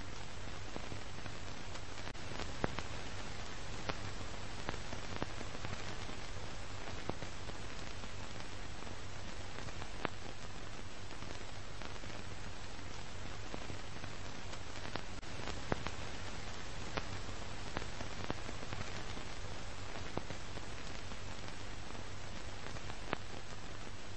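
Steady hiss with a low hum underneath and a few scattered sharp clicks: the noise of an old archival film soundtrack carrying no program sound.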